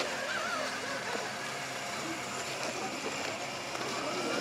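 Electric drive motor and gears of a radio-controlled scale Land Rover Defender crawler running as it crawls over rocks, with voices in the background.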